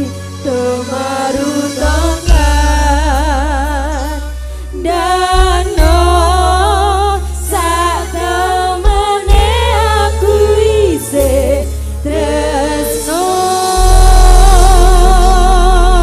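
Javanese campursari song: several women sinden singers singing together with strong vibrato over a gamelan and band accompaniment with steady bass notes. Near the end they hold one long note over a deep bass.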